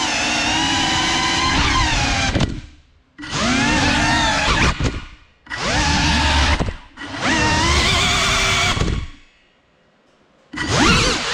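GEPRC Cinelog 35 cinewhoop's four brushless motors and ducted propellers whining, the pitch rising and falling with the throttle. The whine drops out almost completely several times as the throttle is cut, the longest gap about a second and a half near the end, and each time comes back with a rising sweep.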